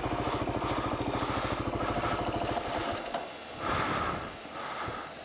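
Kawasaki KLR650's single-cylinder engine idling with an even pulse, then cutting out about two and a half seconds in. After that, the rider's heavy breathing comes roughly once a second.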